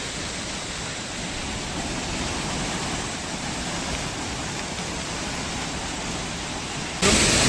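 Waterfall rushing steadily as one even wash of water noise. About seven seconds in, it becomes suddenly louder and brighter.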